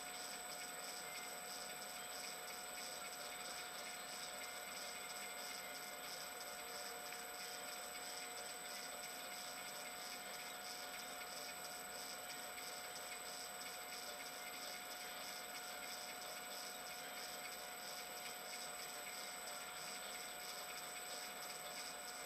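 Steady hiss with a constant high-pitched hum, muffled through a sealed camera housing; no distinct machining sounds stand out.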